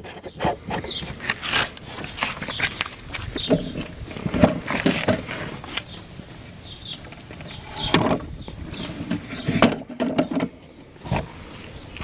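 Irregular knocks, clicks and clatter of objects being handled, with a few short squeaks; no engine is running.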